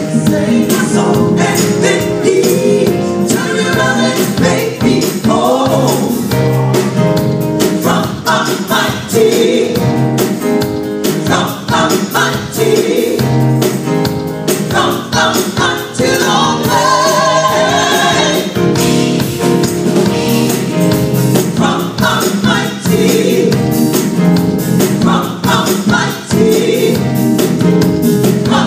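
Gospel choir singing together with a live band behind it.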